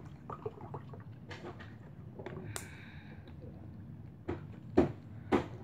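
Handling of a thin plastic water bottle: scattered small clicks and crackles, with two sharp, louder crackles near the end.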